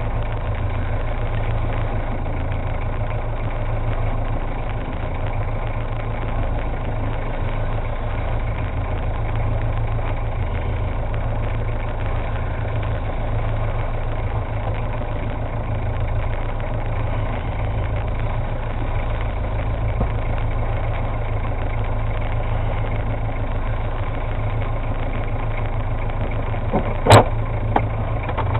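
Boat engine idling steadily, a low even drone, with one sharp knock near the end.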